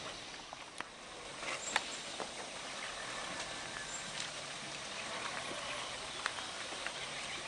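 Sand miners working a volcanic riverbed with hoes and shovels: scattered sharp clinks of tools striking stones over a steady outdoor hiss.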